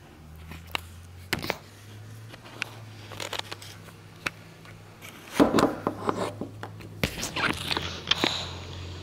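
A metal spoon scraping and clicking against a plate of mac and cheese: scattered light clicks, with louder runs of scraping about halfway through and again near the end, over a low steady hum.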